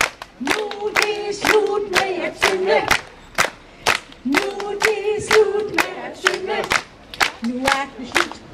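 An audience clapping along in a steady beat, about two to three claps a second, while a group of voices sings two long drawn-out phrases over it.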